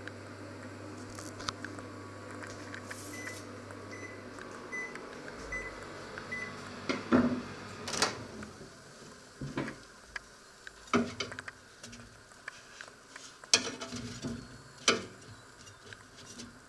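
Microwave oven hum that stops about five seconds in, with a run of about seven short high beeps as the cycle ends. The door is then opened and handled, giving a series of sharp knocks and clatters, several of them loud.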